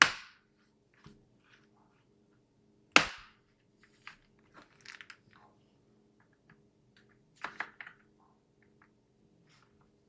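Plastic retaining clips of a laptop's bottom panel snapping loose as it is pried open: a sharp crack at the start and another about three seconds in, then smaller clicks and ticks, with a short cluster of snaps near the end.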